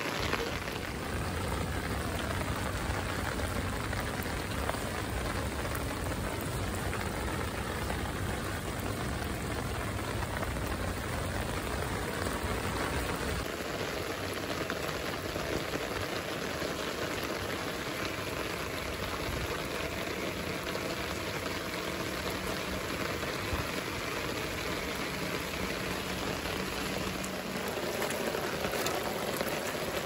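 Steady rain falling.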